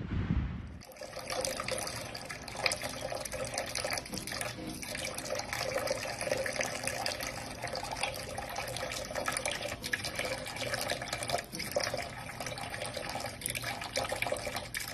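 Kitchen sink faucet running a thin, steady stream of water into the sink, starting about a second in.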